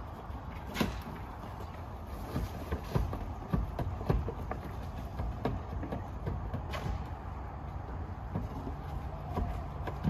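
Scattered, irregularly spaced knocks and taps from a man working on a damaged asphalt-shingle roof, over a steady low rumble.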